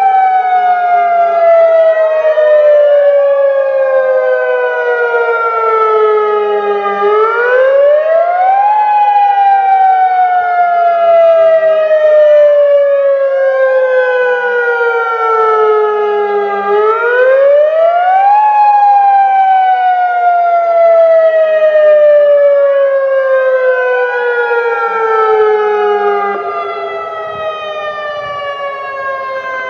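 Dual Federal Signal Modulator 2008 outdoor warning sirens sounding the attack signal: the pitch sweeps quickly up, then glides slowly down, over and over about every ten seconds, with a strong echo. The sound gets somewhat quieter near the end.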